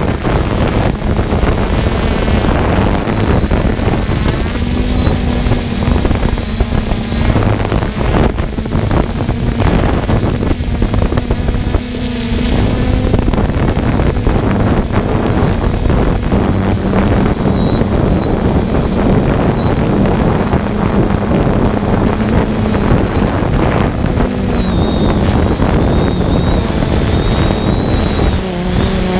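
Quadcopter drone's motors and propellers running, a steady buzz with a high whine whose pitch wavers slightly, mixed with wind rumbling on the microphone.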